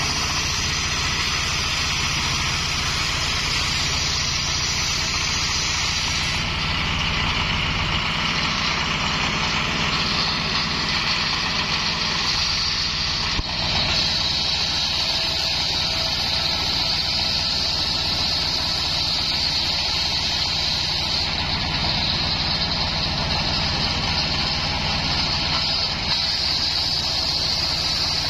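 Homemade circular sawbench driven by a stationary engine, running steadily while coconut-palm wood is ripped on the blade, a constant engine drone under a high cutting hiss. A brief knock comes about halfway through, after which the hiss turns brighter and higher.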